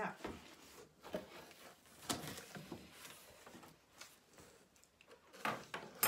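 Cardboard box flaps being pulled open and handled: scattered rustles and scrapes, the loudest about two seconds in and again near the end.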